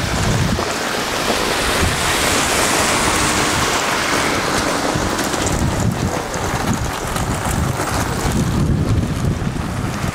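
Wind buffeting the microphone in uneven low gusts, over a steady hiss of traffic on a wet road.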